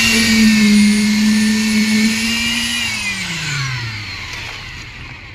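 Electric power tool motor running at full speed with a steady hum and high whine, then switched off about three seconds in and spinning down, its pitch falling away.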